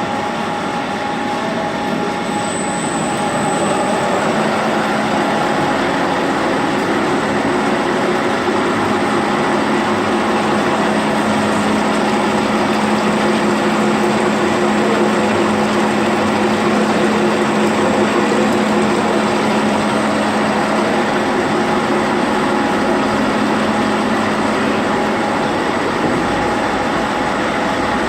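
High-speed industrial cord-twisting machine running: a loud, dense, steady mechanical noise with a steady hum that comes in and grows a little louder about three to four seconds in.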